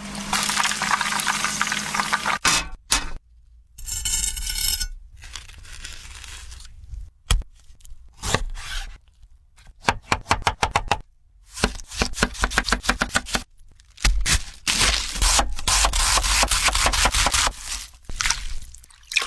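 Kitchen food-preparation sounds in several short separate bursts: scraping, and quick even runs of knocks like a knife chopping on a board.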